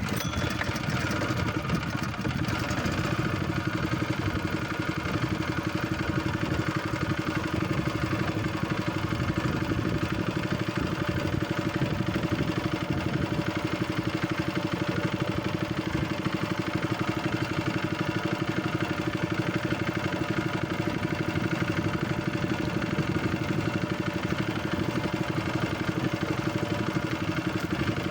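Fishing boat's engine running at a steady speed, with an even hum that starts abruptly and does not change.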